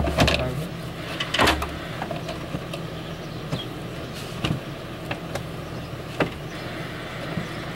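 Hand tools working on engine hardware in a truck's engine bay: a few heavy thuds early on, then scattered sharp metallic clicks and knocks over a steady low hum.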